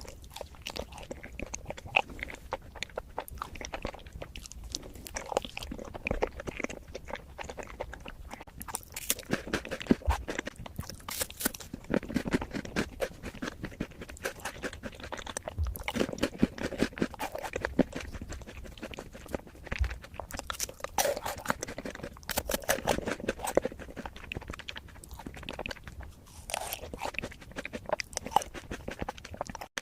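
Close-miked chewing and crunching of matcha food, a dense run of small, irregular crisp bite and mouth clicks.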